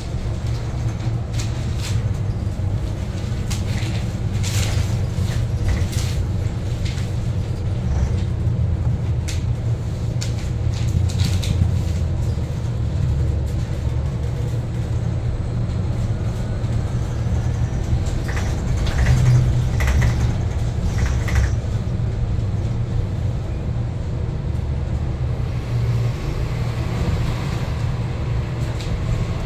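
Interior of a New Flyer XE60 battery-electric articulated bus on the move: a steady low rumble of road and drivetrain, with scattered rattles and knocks from the cabin. A faint rising whine of the electric traction motors comes in about halfway through and again near the end.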